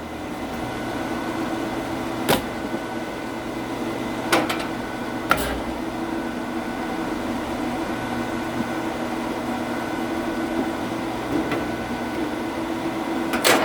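A steady machine hum with a few sharp knocks of oak wood cracking, and a quick run of knocks and cracks at the very end.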